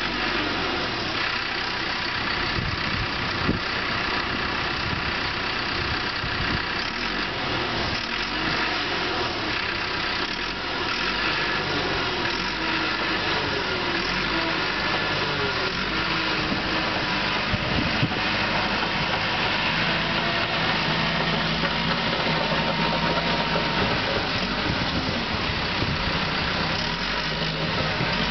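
CAT D5 crawler dozer's diesel engine running steadily while the machine works over the crest of a dirt pile and down its slope, with a brief shift in engine pitch about halfway through.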